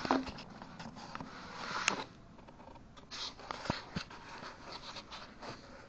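Scattered light clicks and knocks, with a short scrape about two seconds in: small hand tools and hardware being handled while fitting a screwed-on metal sheet.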